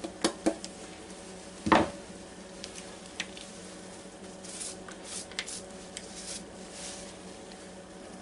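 Clicks and knocks from a metal box grater being handled over a paper plate of shredded potato. There is one louder knock and scrape about two seconds in, then faint scraping and rustling, over a faint steady hum.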